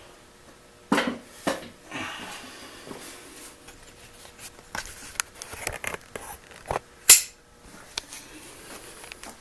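Handling noise from small objects on a work surface: scattered clicks, taps and light scrapes, with a sharp knock about a second in and a louder short rustling scrape about seven seconds in.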